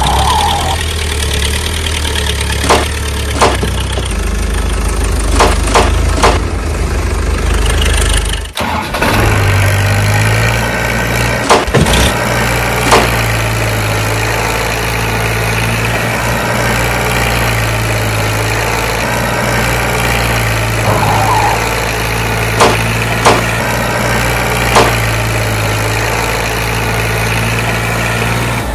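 Tractor diesel engine running steadily, an engine recording laid over the toys. About a third of the way in it cuts to another engine recording with a deeper, steady hum. A few sharp clicks come through now and then.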